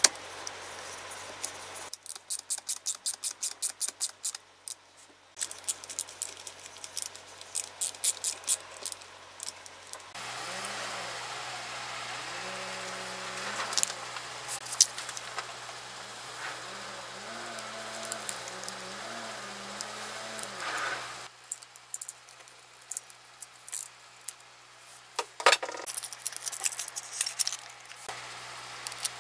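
Hand tools at work on an electric drill's switch wiring: a screwdriver on the terminal screws and pliers on the wire ends. They give a run of quick, even clicks, then scattered small clicks and taps, with one sharp knock near the end.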